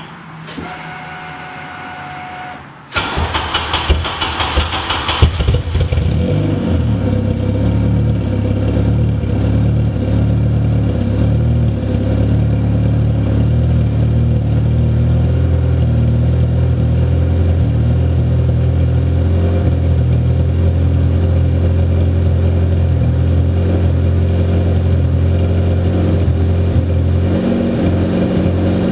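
A supercharged Acura TSX four-cylinder engine, breathing through an aftermarket header and Skunk2 cat-back exhaust, starts about three seconds in. It flares for a couple of seconds, then settles into a steady, deep idle at the tailpipes.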